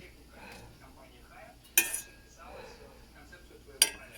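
A metal spoon clinking sharply against a cooking pot twice, about two seconds apart, as foam is skimmed off a just-boiled home remedy.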